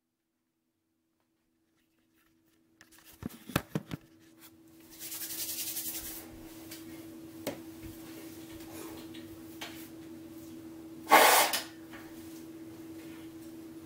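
Handling noises as a person picks up and readies a trombone: silence for about three seconds, then a few sharp knocks and clicks, a short rush of hiss, and a steady low hum. A loud, brief burst of noise comes about eleven seconds in.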